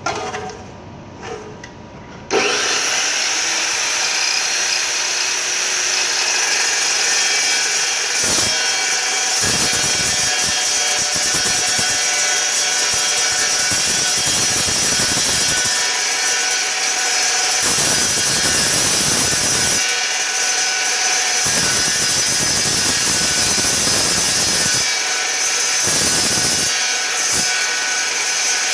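Evolution Rage 2 chop saw cutting through half-inch steel flat bar with its stock multi-use blade. A loud, steady metal-cutting sound starts suddenly about two seconds in, with its lower part swelling and easing again and again as the blade bites.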